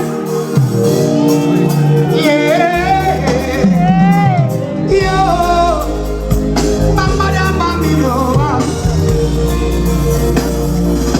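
Loud music with a man singing a wavering, melismatic vocal line over sustained accompaniment, as at a live sound check; a heavy bass line comes in about three seconds in.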